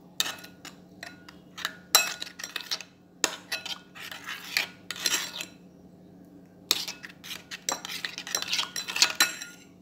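Metal spoon stirring a wet mayonnaise-and-milk sauce in a glass bowl, with rapid clinks and scrapes against the glass. It stops briefly a little past halfway, then starts again.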